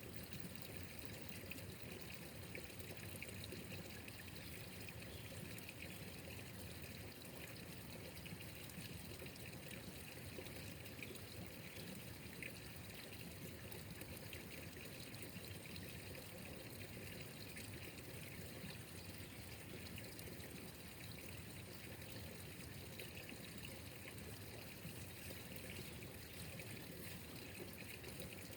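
Steady trickle of running water, even and unbroken throughout.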